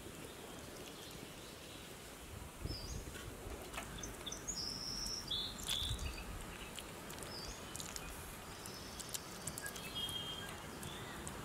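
Birds chirping, several short high calls in the middle and another near the end, over steady outdoor background noise, with light clicks of a metal spoon scooping vegetable filling into hollowed potatoes.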